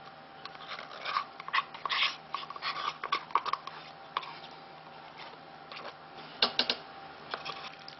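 Tomato paste being squeezed out of a plastic pack into a slow cooker crock: an irregular scatter of soft crackles and squelches, then three quick sharp taps about six and a half seconds in.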